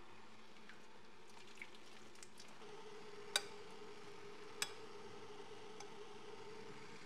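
A metal spoon clinks twice against a ceramic soup bowl, a second or so apart, over a faint steady hum, with a few softer ticks of the spoon in the soup before.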